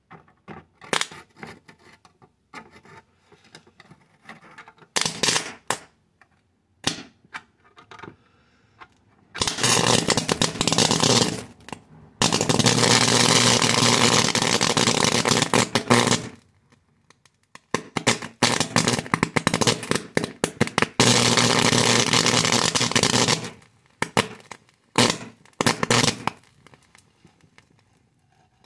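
Electric arcing between two probes on a charred circuit board. Scattered sharp snaps turn, after about nine seconds, into three long stretches of loud crackling buzz with a low hum under it, then break up into snaps again near the end.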